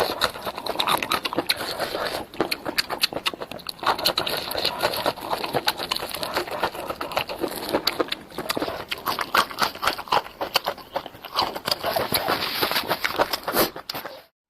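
Close-miked eating sounds: wet chewing with dense, irregular mouth clicks and smacks. It cuts off abruptly just before the end.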